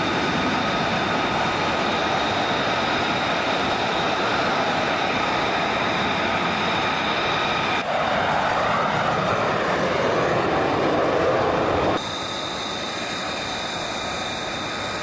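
F-35B Lightning II's F135 turbofan running at taxi power: a steady high whine over a jet roar. The sound changes abruptly twice, swelling between about eight and twelve seconds in, then quieter near the end as the jet is heard from far off at the start of its take-off run.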